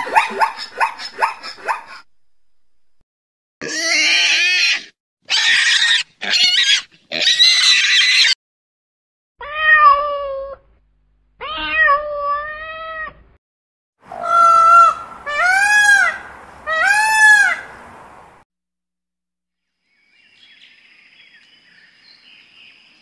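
Cat meowing: a string of separate cries that rise and fall in pitch, the last three coming close together, after a fast pulsing call and some harsher, noisier calls early on.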